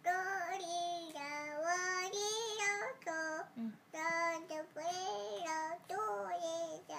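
A young child singing a short song in several held phrases with brief pauses between them.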